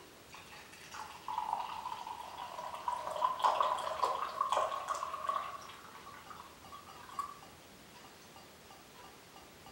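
Tea pouring in a thin stream from a small red clay teapot into a tall ceramic cup, a steady splashing for about six seconds. It thins to drips as the pot is tipped back, with a last drip near the end.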